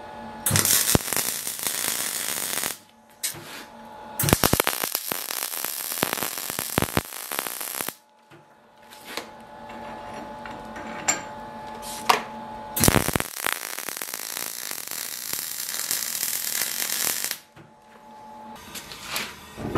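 Wire-feed (MIG) welder arc crackling on steel in short runs as the torch is triggered, three longer runs of about two to four seconds with a few brief spurts between. A steady hum sounds under the pauses.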